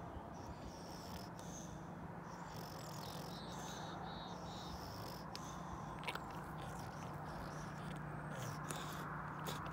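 A small bird chirping short, high calls about once a second, over a faint steady low hum and soft background hiss.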